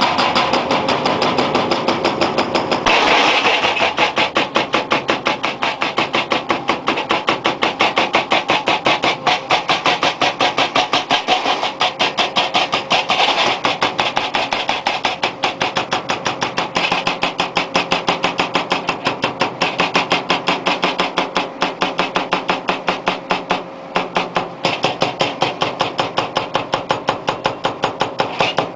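Hydraulic breaker on a Brokk 180 demolition machine hammering continuously at several blows a second over the drone of its power pack, pausing briefly about three-quarters through.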